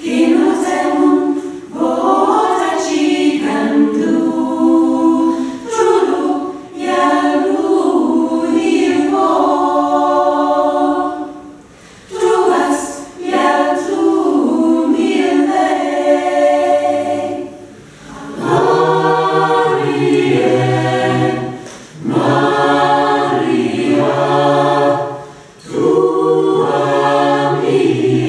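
Mixed choir singing a cappella in phrases, with short gaps between them. Lower men's voices come in about two-thirds of the way through.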